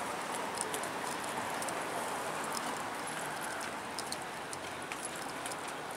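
Footsteps of several people walking on a paved sidewalk, light irregular scuffs and taps over a steady hiss of road traffic.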